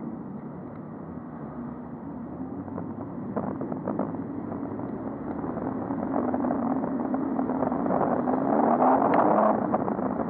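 Road traffic with air noise on a cyclist's helmet camera microphone. Near the end, a vehicle's engine rises in pitch and grows louder as it speeds up.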